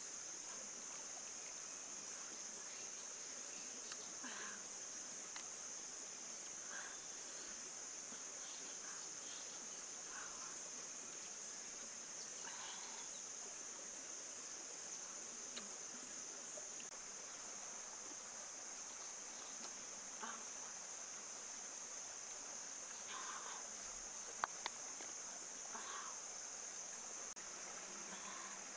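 Steady high-pitched drone of insects in the forest, unbroken throughout, with a few faint short sounds scattered over it and two sharp clicks about three-quarters of the way through.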